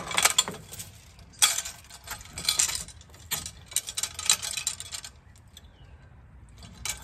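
Steel safety chains on a transmission jack adapter jingling and clinking against its metal cradle as they are handled, in several bursts over the first four or five seconds, then quieter.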